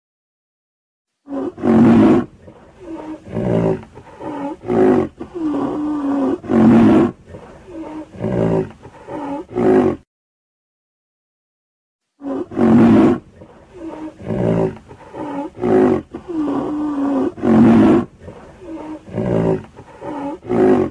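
A rhinoceros calling: a run of short and longer pitched calls whose pitch wavers and bends, lasting about nine seconds, then a two-second silence, then the same run of calls again.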